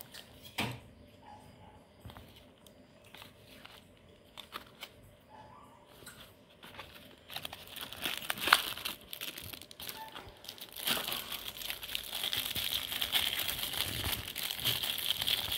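Scattered small clicks and taps as a cardboard box is handled and its flap opened, with one sharper snap about halfway through; then, for the last third, continuous crinkling of a clear plastic wrapper being pulled off a small digital timer.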